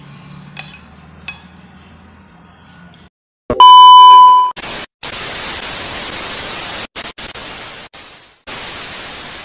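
Two light clinks of a spoon on a plate, then a loud, steady, high beep lasting about a second. After it comes loud TV-static hiss that cuts out briefly a few times, an added static-glitch editing effect.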